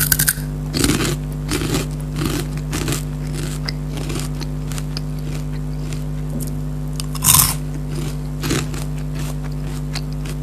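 Crunchy Kurkure corn puffs being bitten and chewed close to the microphone: a quick run of crisp crunches in the first three seconds, then a louder bite about seven seconds in and another shortly after. A steady low hum runs underneath.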